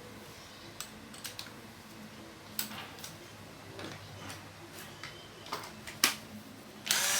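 Scattered light clicks and taps of a cordless drill being handled, then just before the end the drill's motor starts running briefly with a steady whirr.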